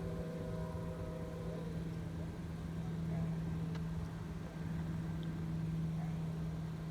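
Steady low hum of a running engine. A set of higher steady tones above it fades out about a second and a half in.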